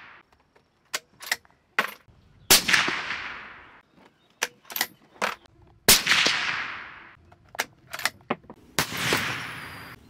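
Suppressed .308 Winchester bolt-action rifle (Ruger American with a SilencerCo Hybrid 46 suppressor) firing three shots about three seconds apart, each report trailing off over a second or more. Short metallic clicks of the bolt being worked come between the shots.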